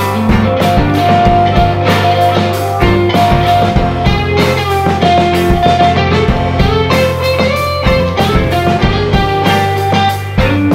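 Background music with a steady beat, a held low bass line and melody notes over it.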